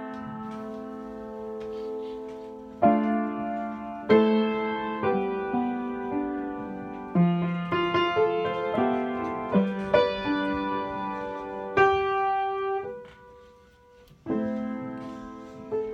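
Piano playing slow chords, each struck and left to ring. About thirteen seconds in it thins to a single held note and nearly dies away, then the chords start again.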